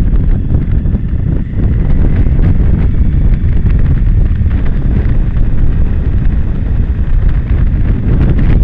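Heavy, steady wind buffeting on the microphone of a camera riding on a Suzuki V-Strom motorcycle at track speed, a dense low rumble that covers the bike's engine.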